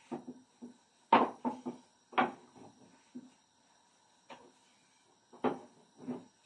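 Long thin wooden rolling pin knocking and rolling on a wooden board as dough is rolled out into a thin sheet: a string of irregular clacks, the loudest about one and two seconds in.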